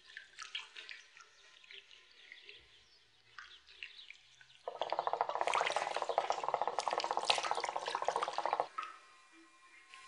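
Water bubbling in the base of a hookah (nargileh) as the smoker draws on the mouthpiece. A few scattered small bubbles come first, then from about halfway through a dense, steady gurgling for about four seconds that stops suddenly.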